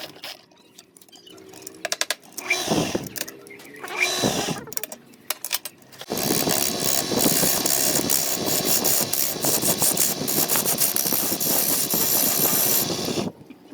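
Woodworking power tool at work on wood, most likely a woodturning lathe with a tool cutting the spinning piece. There are scattered short noises and two falling sweeps in the first six seconds, then about seven seconds of continuous rasping cutting that stops abruptly near the end.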